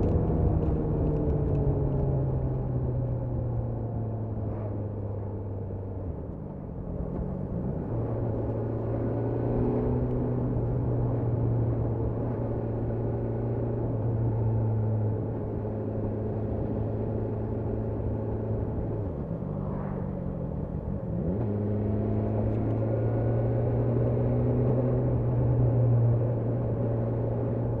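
BMW S1000R's inline-four engine running at a steady, moderate speed on the road, its note falling at the start as it slows, then dipping and climbing again about two-thirds of the way through as it pulls away.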